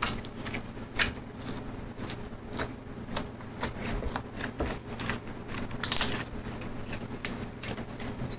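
Slime being squished and poked by hand, making irregular sticky clicks and pops, a few a second, one of the loudest about six seconds in.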